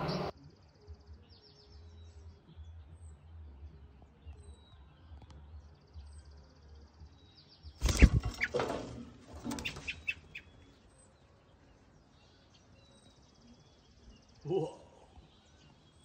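Faint songbird trills, each a fast run of notes about a second long, repeating several times, with scattered small chirps. From about eight to ten seconds in, a loud close rustling and bumping stands out above them.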